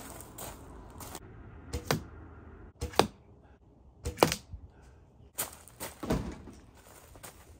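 Arrows shot from a Super Grizzly bow striking a straw-bale target, three sharp knocks about a second apart, each just after a lighter click of the release. Near the end come a few looser knocks.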